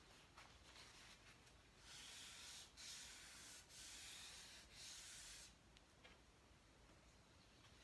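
Chalk rubbing and scratching across paper in four quick strokes of about a second each, a few seconds in, faint and dry.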